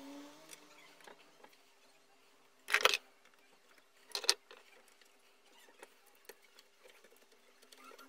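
Small metal parts and hand tools being handled while an electric planer is taken apart: faint scattered clicks, with two brief loud metallic clatters about three and four seconds in.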